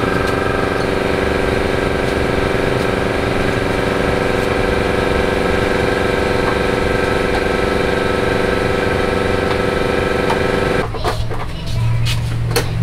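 An engine running steadily at an even pitch. About eleven seconds in it cuts off abruptly and gives way to a lower hum with a few light clicks.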